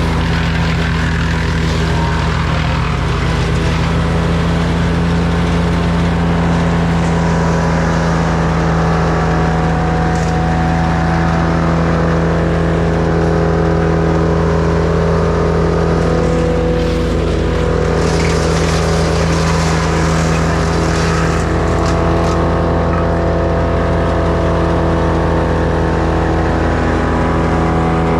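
Echo chainsaw's two-stroke engine running at high revs, holding a steady pitch as it cuts through wood.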